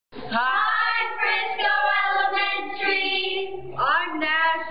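Children singing, with long held notes.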